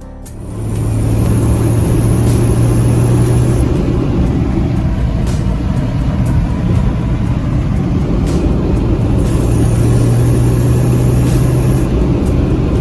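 Car on the move: a steady low engine drone with road and wind noise. The drone comes up loudest twice, once near the start and again in the second half.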